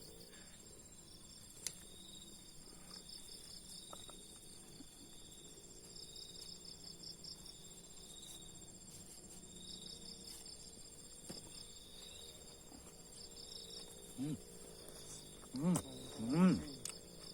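Insects, likely crickets, chirping steadily in high, pulsed trills. Near the end come three short rising-and-falling voiced calls.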